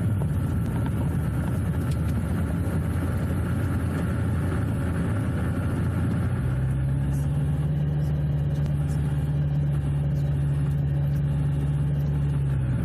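Rotax 915 iS engine of an Argon gyrocopter running steadily at low power while it taxis over grass, heard inside the cockpit. About six seconds in the engine note changes and settles into a steadier hum.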